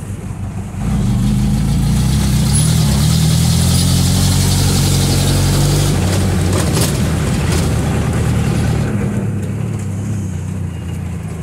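Small bus's engine heard from inside the cabin, pulling harder about a second in and running under load for several seconds, then easing off. A few sharp knocks or rattles come near the middle.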